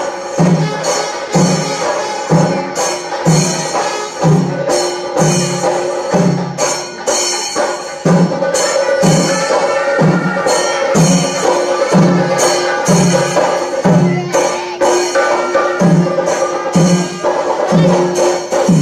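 Music with a steady drum beat, about two beats a second, over a held melody.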